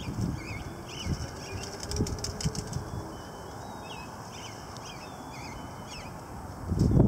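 Gusty storm wind buffeting the microphone in low rumbling surges, easing off partway through and picking up hard again near the end. Small birds chirp faintly throughout.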